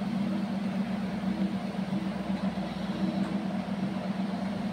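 Potato chunks frying in hot oil in a steel kadai, a steady sizzle, over a constant low hum.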